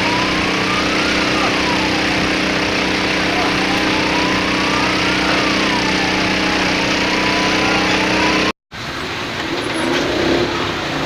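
A siren wailing, rising and falling about every four seconds, over an engine running steadily. The sound cuts off suddenly about eight and a half seconds in, giving way to quieter, mixed noise.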